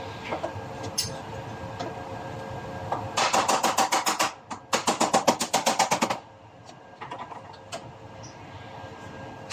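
Body hammer tapping rapidly on sheet metal backed by a dolly, straightening a small dent. There are two quick runs of about ten blows a second, with a short pause between them.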